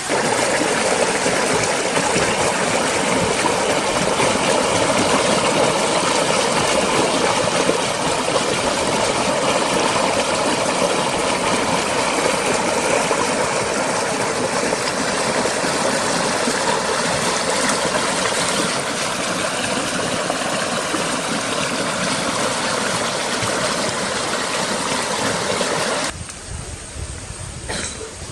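Water rushing steadily with an even hiss, cutting off abruptly near the end.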